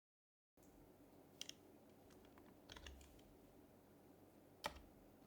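A few scattered keystrokes on an HHKB Type-S keyboard, with its soft, silenced Topre key sound: a pair, then a short cluster, then one sharper click near the end. The typing is sparse and quiet over faint room noise.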